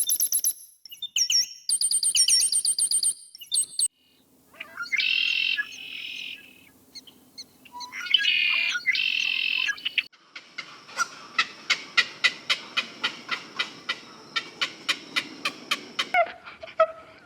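Bird calls in several short, differing bouts: first a run of high, quick chirps, then a few longer calls, then a fast series of sharp, evenly repeated notes, about three a second.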